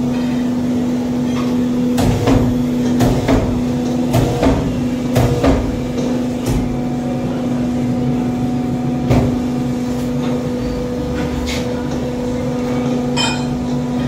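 80-gram hydraulic insert moulding machine running: its hydraulic pump and motor give a steady hum, with irregular clanks and knocks from the machine every second or few.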